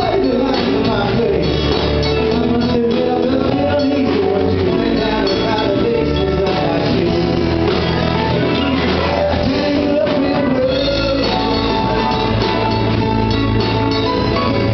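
A live band playing: acoustic and electric guitars and a drum kit, with a singer's voice carrying the melody.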